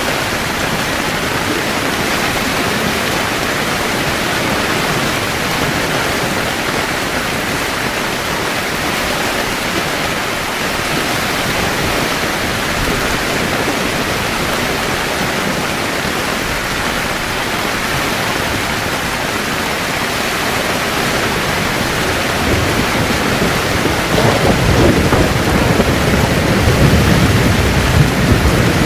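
Heavy rain falling on a camping tent in a steady hiss. About 24 seconds in, a low rumble of thunder rolls in and grows louder toward the end.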